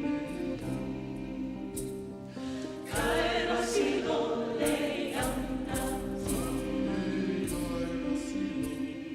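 A vocal ensemble singing in several-part harmony with long held notes, growing louder about three seconds in.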